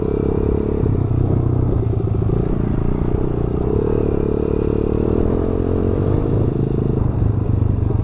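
Motorcycle engine running while the bike is ridden along a road, its note rising and falling with the throttle a few times.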